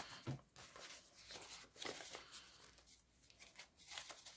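Faint rustling and flicking of banknotes being handled and counted by hand, in short irregular bursts.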